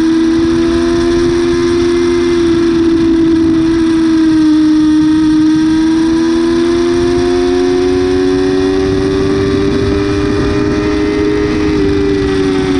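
Yamaha R6's inline-four engine at high revs on track in third gear, the note holding steady through a corner, then climbing as the bike accelerates down the straight, with wind rush behind it. The pitch begins to drop right at the end as the throttle closes.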